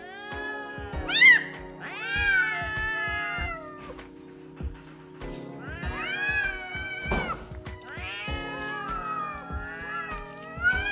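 A tabby domestic cat yowling: four long, wavering calls, the first rising to a sharp high peak.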